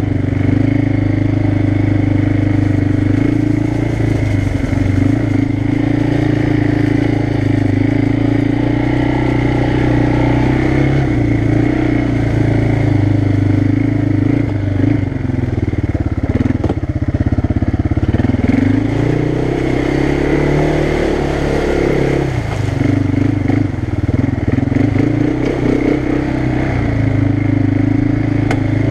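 ATV engine running steadily while riding a dirt trail; about halfway through the pitch drops as the throttle eases off, then climbs back up as it accelerates and settles again.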